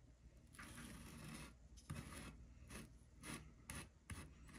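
A wide flat paintbrush scraping and swishing as it spreads thick wet paste over a foam hillside. It starts with one longer stroke, then a run of short strokes, all faint.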